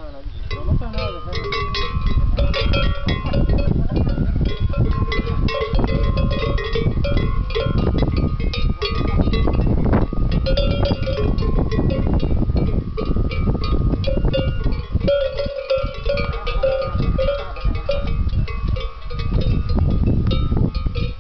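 Cowbells on a herd of Tudanca cattle clanking and ringing irregularly as the animals move and graze, several bells sounding at different pitches.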